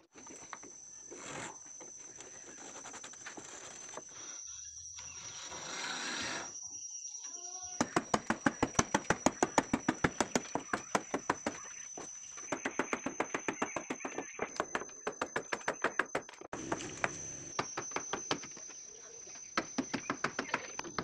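Quick, repeated chops of a hand cutting tool into the edge of a wooden boat plank, about five or six sharp strikes a second. The chopping comes in runs, starting about eight seconds in, with short pauses between them.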